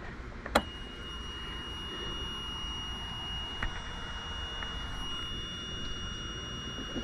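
Key-switch click, then the engine instrument panel's warning buzzer of a Universal M25-XPA marine diesel giving one steady high-pitched tone with the ignition on before cranking. This is the alarm that sounds while there is no oil pressure yet, as it normally does before start.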